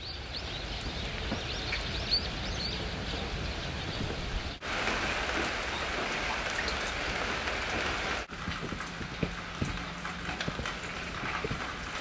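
Steady rain falling, with scattered sharp ticks of single drops. The sound cuts and changes level twice, and is heaviest in the middle stretch.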